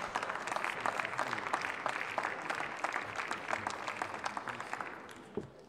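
Applause from members of parliament in a large chamber, many people clapping, fading out near the end.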